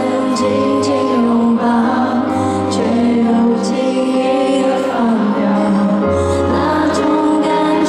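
Live concert music: a slow pop ballad with a woman singing over held chords and bass notes, heard over an arena's loudspeakers.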